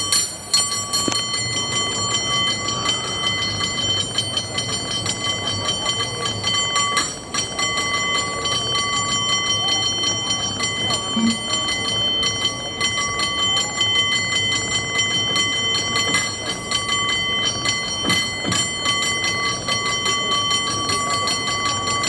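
San Francisco cable car's roof bell rung rapidly and without pause as a rhythmic performance. The many strikes blend into steady, loud ringing.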